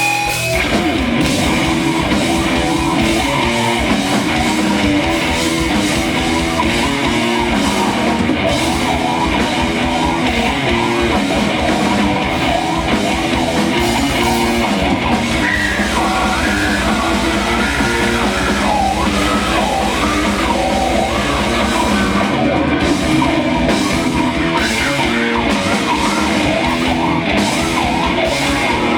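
A live rock band playing loud and fast in a heavy punk-metal style, with distorted electric guitars, bass and drums and shouted vocals. The full band kicks in right at the start.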